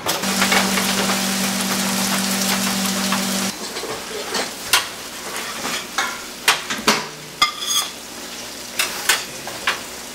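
Kitchen sounds: a steady hiss over a low hum for about three seconds, then scattered sharp clicks and clinks.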